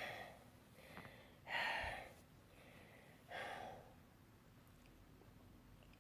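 A woman with cystic fibrosis breathing hard: three faint breaths about two seconds apart.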